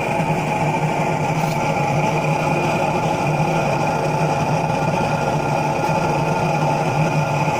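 Home-made waste-oil furnace burning with a steady, even hum and rush, still warming up before it settles into its running mode.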